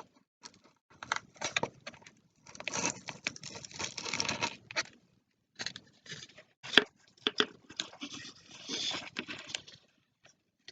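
Cardboard and paper being handled: a string of taps and clicks with two longer stretches of rustling and scraping, and a sharp knock near the middle.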